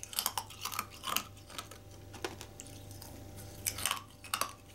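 Open-mouthed chewing of a hard, compressed stick of Oshidori milk cake candy: short crisp crunching clicks in irregular clusters of bites.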